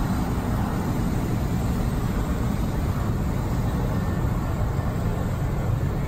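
A 1989 GMC Sierra 3500 ramp truck with a 454 big-block V8 driving: steady engine and road noise, mostly low in pitch, heard from inside the cab.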